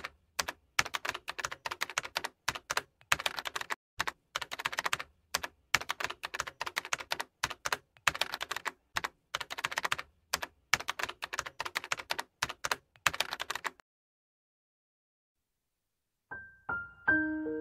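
Rapid computer-keyboard typing clicks in bursts of a second or so, stopping about three-quarters of the way through. After a short silence, soft piano notes begin near the end.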